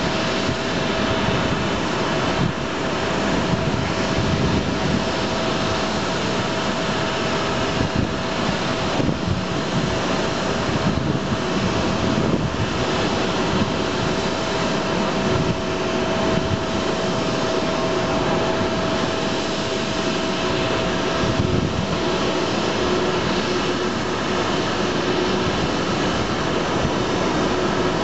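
Jet aircraft noise on an airport apron: a steady rushing drone with a constant whine. A second, lower whine joins about halfway through, and the higher whine stops near the end.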